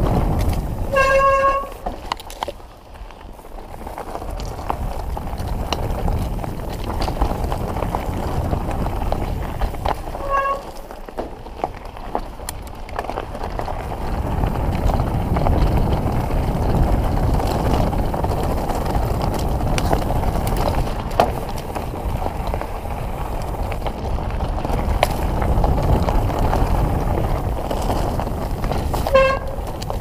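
Mountain bike rolling over a rough, rocky trail: steady tyre and rattle noise with many small knocks, and wind on the microphone. Three short high tones sound over it, about a second in, around ten seconds in, and just before the end.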